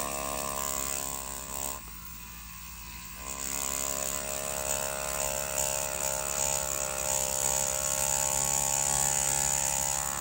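Mast Archer pen-style rotary tattoo machine running with a ballpoint pen cartridge while drawing a line on paper: a steady motor buzz with many overtones. It drops quieter about two seconds in and comes back louder a second or so later.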